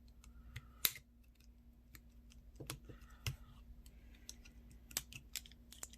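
Screwdriver prying at the plastic back cover of a Samsung Gusto flip phone that is sealed with silicone: scattered, irregular sharp plastic clicks and ticks, the loudest a little under a second in.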